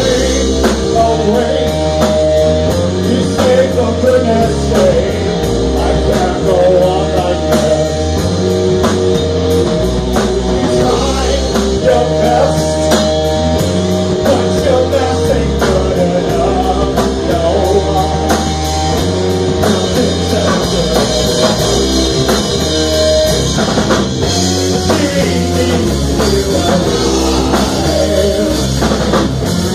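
Live rock band playing loud in a small room: electric guitar and drum kit, with singing.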